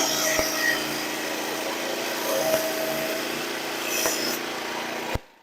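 Portable Frontier bandsaw mill running with its new blade sawing through a log: a steady engine hum under a rasping sawing noise. It cuts off suddenly near the end.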